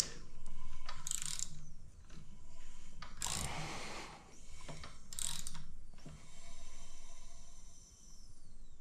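Ratchet wrench clicking in several strokes about two seconds apart as the Aprilia Tuono V4 engine is turned over by hand to bring the front cylinders' intake cam lobes into position for a valve clearance check.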